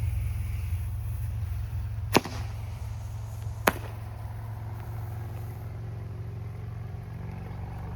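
Two sharp firework cracks about a second and a half apart, over a steady low rumble.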